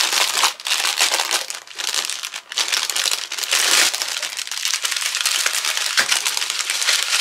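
Small plastic zip-lock bags of diamond painting drills crinkling as they are handled, in uneven bursts with brief pauses, and one short click about six seconds in.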